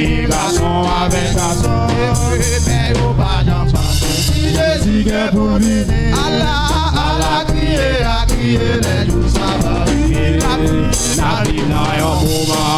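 Live gospel music: a men's vocal group singing over a drum kit with cymbals, keeping a steady beat.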